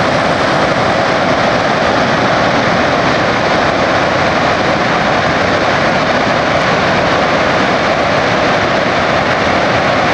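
Grand Coulee Dam spilling, with water pouring over the spillway and jetting from all its outlet tubes: a steady, loud roar of falling water with no let-up.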